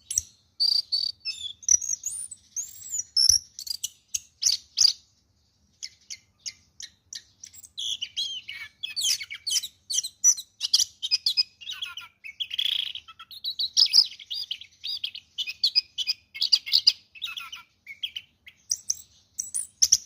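Orange-headed thrush (anis kembang) singing a long, varied song of rapid chirps, whistles and trills, broken by a pause of about a second roughly five seconds in.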